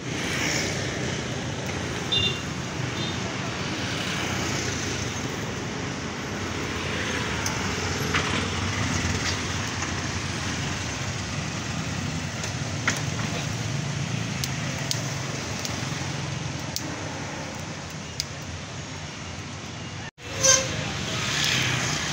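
Busy street traffic noise, with motorbikes and cars passing and voices in the background, and a brief high tone about two seconds in. The sound drops out for an instant near the end.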